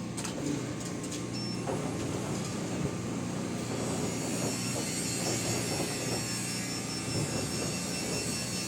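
Motorised roll-up garage door running, a steady motor hum under the rattle and grind of the rolling slats, which grows brighter and harsher about a third of the way in.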